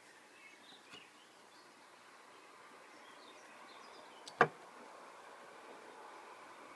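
Handling of a SIM card and a small metal SIM card cutter: a few faint clicks about a second in, then one sharp click about four and a half seconds in.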